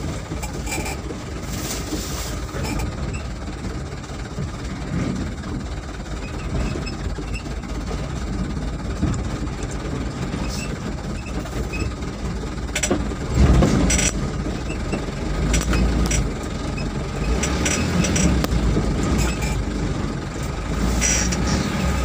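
A vehicle driven over a rough, rutted dirt track, heard from on board: steady engine and road noise with frequent knocks and rattles, and a loud jolt about thirteen seconds in.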